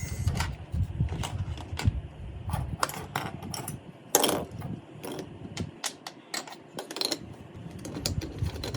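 Small plastic and metal miniature kitchen pieces being handled and set down: a string of irregular light clicks and taps over a low rumble.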